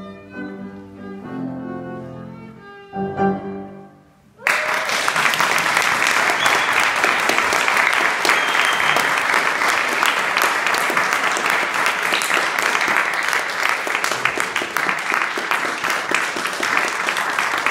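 Violin music ends on a final note a few seconds in. After a brief pause, an audience claps, loud and steady, for the rest of the time.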